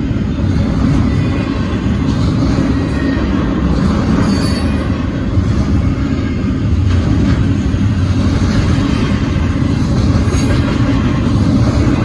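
Double-stack intermodal train's container well cars rolling past close by: a steady, loud rumble of steel wheels on rail. A brief high squeal comes about four seconds in.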